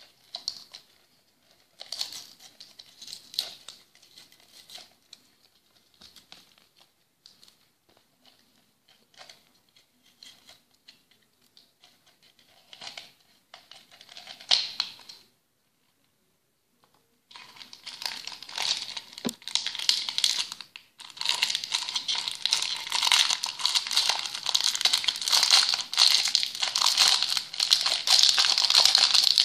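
Clear plastic wrapping crinkling and tearing as it is peeled off a plastic candy-dispenser toy. Sparse small crackles at first, a short silence about halfway through, then steady, louder crinkling for the last dozen seconds.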